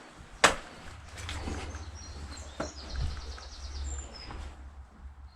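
Faint birds chirping, with a quick repeated trill among the calls, over a low steady rumble. A single sharp knock sounds about half a second in.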